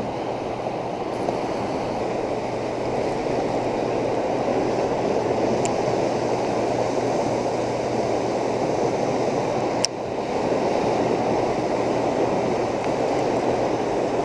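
Steady rush of water pouring through a dam spillway during a high release. A single sharp click comes about ten seconds in.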